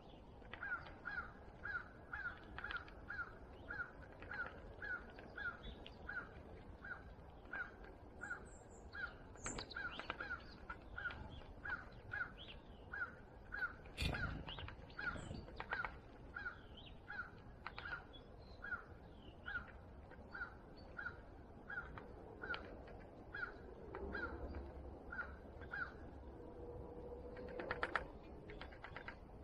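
A bird calling the same short note over and over, about twice a second, with a sharp click about halfway through and a brief louder sound near the end.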